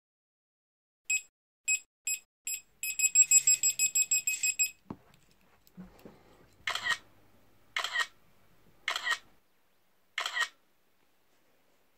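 Intro sound effect of a camera self-timer: four single high beeps, then a fast run of beeps, then a click. After that come four short, sharp snaps about a second apart.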